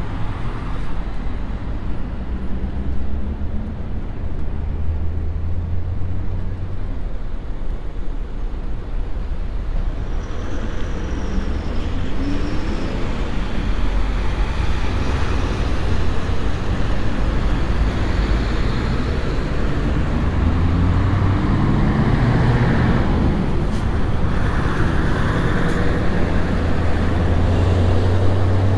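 Road traffic: motor vehicles running past with a steady low rumble, growing louder about halfway through.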